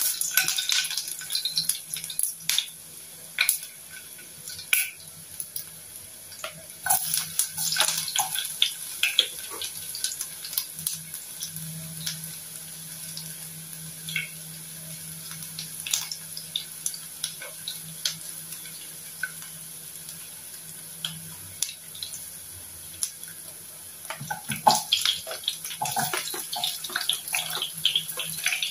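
Garlic frying in hot oil in a pan on a gas burner: a steady sizzle with scattered pops and crackles. Near the end the crackling grows louder and denser as sliced red onions go into the oil.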